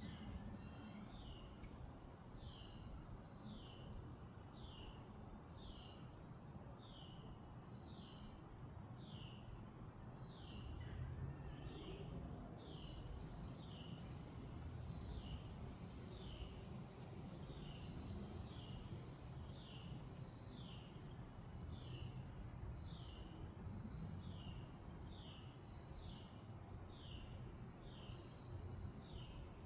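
Autumn wind blowing through leafy trees as a steady low rush, with a bird repeating a short falling chirp a little more than once a second.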